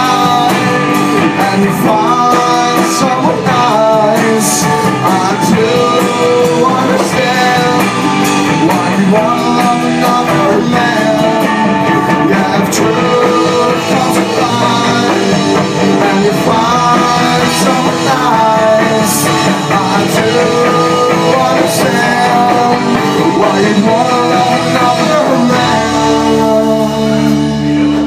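Live rock band playing loudly: electric guitars, bass guitar and drum kit, with singing. For the last couple of seconds the drums stop and the band holds one sustained chord.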